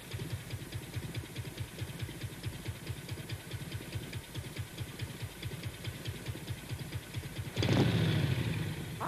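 Cartoon sound effect of a small motor vehicle's engine puttering with a fast, even beat, then a sudden louder burst of noise about seven and a half seconds in.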